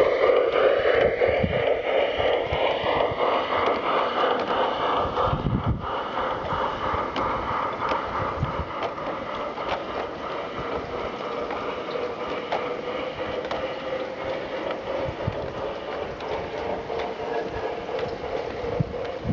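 A large-scale garden model freight train rolling past: a steady running rumble of metal wheels on the track with occasional light clicks. It is louder in the first few seconds, as the locomotive moves away, then settles as the wagons go by.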